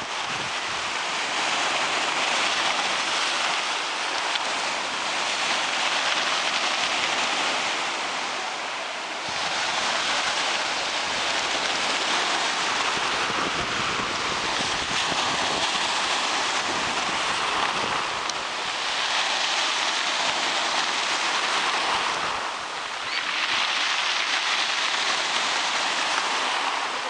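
Black Sea surf: waves breaking and washing on the shore, a continuous hiss that swells and eases in long surges, dipping briefly a few times.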